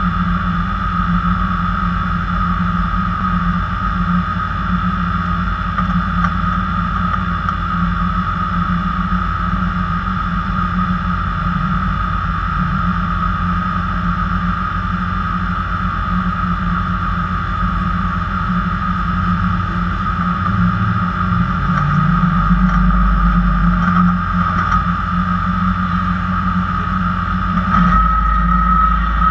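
Off-road race vehicle's engine idling steadily, heard from inside the cockpit over a constant high whine. The low engine sound grows heavier about three quarters of the way through and again near the end.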